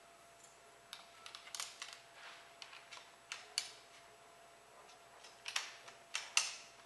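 Scattered sharp metal clicks and light rattles as the pull tool is adjusted and set on a telescoping lag pole with its wire bail pins, coming in small clusters, the loudest near the end.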